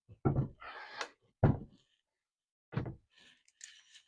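Four dull thuds and knocks spread over about three seconds, as of something solid being set down or bumped, with a short scraping rustle between the first two.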